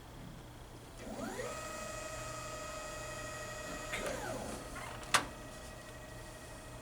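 Motorized stage of an AVIT-DT automated fiber-optic inspection scope starting its inspection cycle. A stepper-motor whine rises in pitch about a second in, holds steady, and falls away near four seconds, then a second steady whine follows. One sharp click comes about five seconds in.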